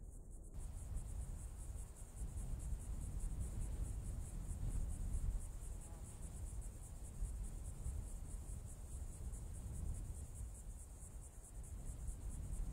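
Crickets chirping in a steady, fast, even trill over a low rumble of outdoor ambience.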